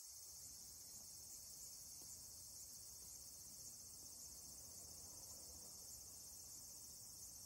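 Faint, steady, high trilling of an insect chorus, with a low rumble underneath.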